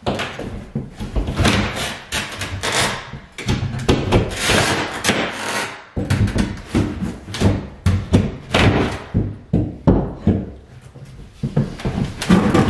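Pry bar knocking and prying a ceramic tile tub surround and its drywall backing off a bathroom wall: repeated irregular knocks and thuds with cracking and scraping in between.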